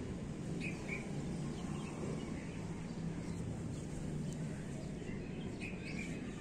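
Outdoor ambience: a steady low background rumble, with a few short bird chirps about a second in and again near the end.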